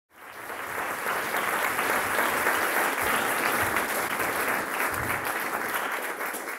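Audience applauding: dense clapping that swells in over the first half second and holds steady.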